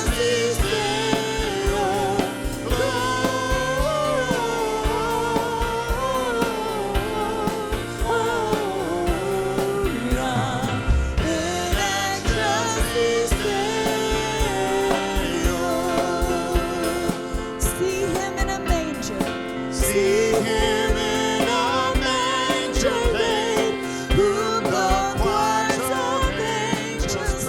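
Worship music: a voice singing over a live band with steady drum beats.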